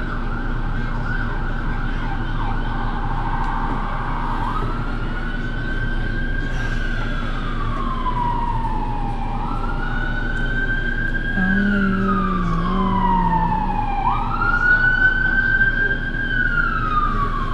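A siren wailing, its pitch rising quickly and then falling slowly, about every five seconds.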